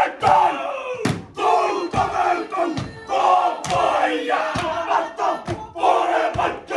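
Group of men performing a Māori haka: a loud shouted chant in unison, in short forceful phrases, with rhythmic slaps about twice a second.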